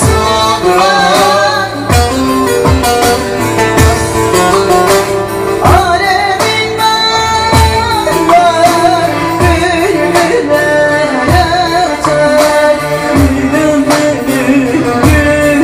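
A song: a woman singing a wavering, ornamented melody over plucked strings, with a low drum beat about once a second.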